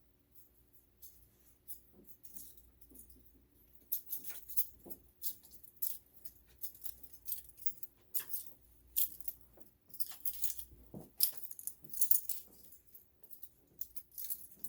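Small hard objects clinking and rattling while being handled, a quick irregular run of light clicks and jangles that starts about four seconds in.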